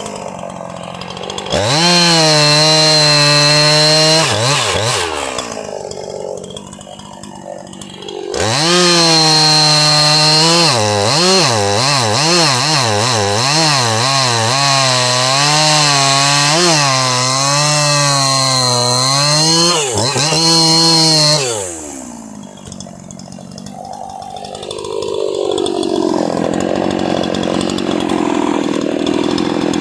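Jonsered 2153 chainsaw's two-stroke engine revved to full throttle twice, first briefly for about three seconds, then for about thirteen seconds with the pitch wavering up and down. Each time it drops back to idle, and near the end it settles into lower, steady running.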